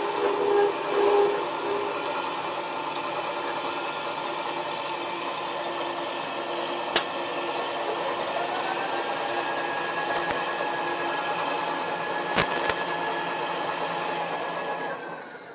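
Milling machine running a slitting saw at about 82 rpm, cutting a slot in a steel block with a steady whine and grind and two sharp clicks along the way. Near the end its tones slide down and the sound drops away as the machine winds down.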